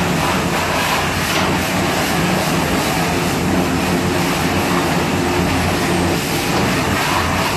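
Pressure washer running steadily: a constant motor-and-pump drone under the hiss of a water jet spraying a motorcycle.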